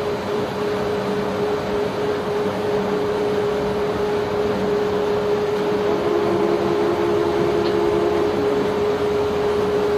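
Steady machine hum with one held tone, over an even rushing noise of sand and water flowing during barge sand unloading. It grows a little louder about three seconds in.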